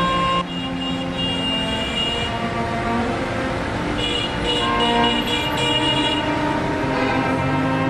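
Several car horns honking at once, held and overlapping, from a queue of stopped cars.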